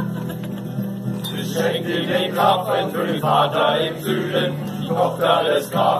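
A group of people singing together in a chant-like unison, over a steady low accompaniment.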